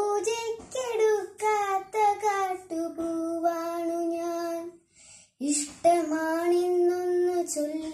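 A young girl's solo voice chanting a Malayalam poem to a melody, unaccompanied, in the sung style of Malayalam verse recitation. She holds long notes with small pitch glides and breaks off briefly about five seconds in.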